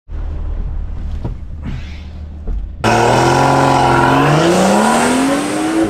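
BMW 540i G30's tuned 3.0-litre inline-six accelerating at full throttle. After about three seconds of low rumble it comes in suddenly loud, its pitch holding for a moment and then climbing steadily.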